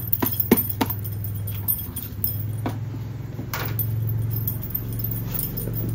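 Keys jangling and rubber boots being handled and pulled on, with several sharp clicks and knocks in the first second. A steady low hum sits beneath.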